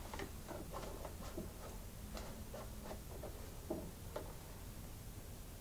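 Faint, irregular light clicks and taps of a dipstick being handled in the oil fill tube of a small single-cylinder engine, over a low steady hum.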